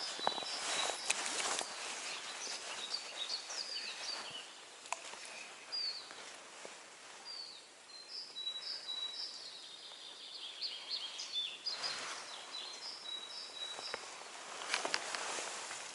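Small songbirds chirping and trilling in quick, high notes, with bursts of rustling near the start and twice again near the end.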